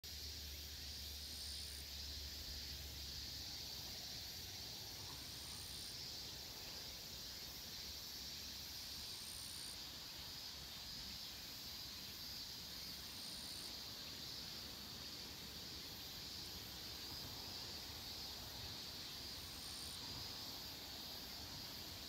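Steady, high-pitched insect chorus, with a brief, higher chirp repeating every few seconds.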